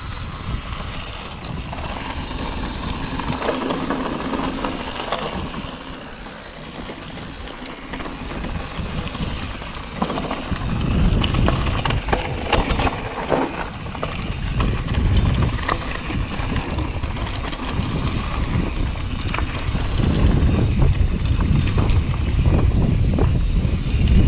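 Mountain bike rolling down a dry dirt singletrack, with wind rumbling on the camera's microphone and the tyres and bike rattling and knocking over the bumps, busier and louder from about ten seconds in.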